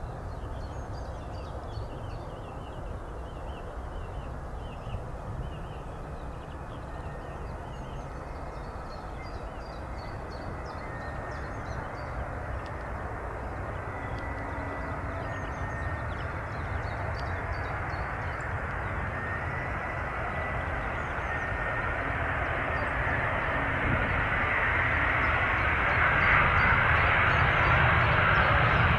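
Jet airliner approaching to land, its engine noise growing steadily louder and loudest near the end. Small birds chirp faintly in the first half.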